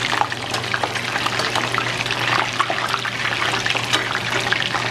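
Parboiled chicken pieces sizzling in hot oil in a stainless steel sauté pan: a steady hiss full of small crackles.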